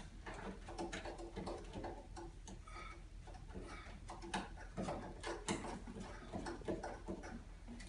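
Faint, irregular small clicks and taps of hands working at the base of a refrigerator, hooking up its water supply line.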